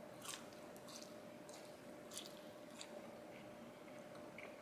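Faint chewing of a French fry, with a few scattered soft crunchy ticks from the mouth.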